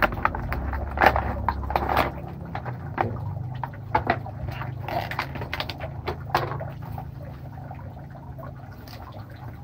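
Bubble wrap and plastic packaging crinkling and crackling in irregular clicks as they are handled, thinning out near the end, over a steady low hum.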